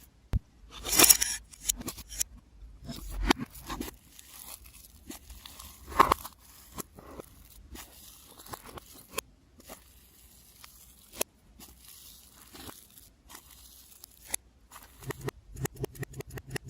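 Slime being squished and stretched, played in reverse: scattered sticky crackles and clicks with a few sharper snaps. Near the end it turns to a quick run of pops, about three or four a second.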